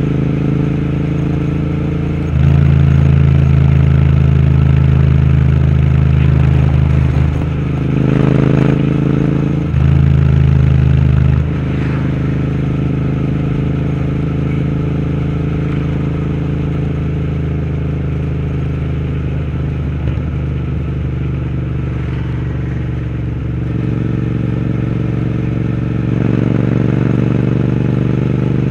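Royal Enfield Interceptor 650's parallel-twin engine running through a Powerage aftermarket exhaust while riding, at a steady pitch. It gets louder under throttle from about two seconds in for around five seconds, and again briefly around ten seconds.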